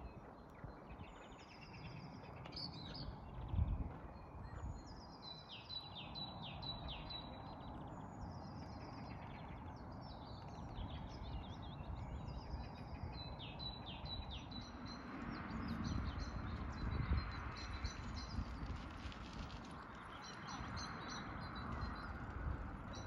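A small songbird singing a short high song several times, about every four seconds, over a low steady background rumble.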